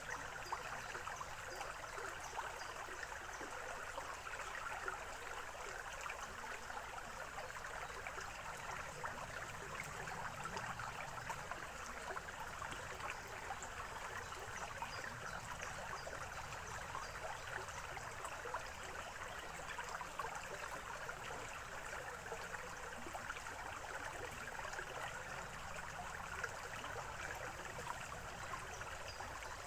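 Small forest stream running over stones, a steady babbling and trickling of water.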